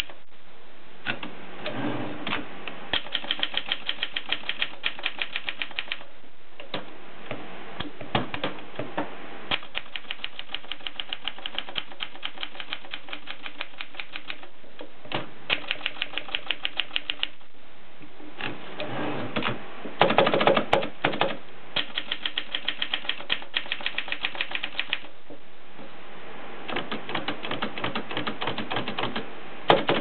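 Adler Tippa portable typewriter being typed on: runs of rapid key strikes clacking, broken by short pauses. A louder, longer clatter comes about two-thirds of the way in.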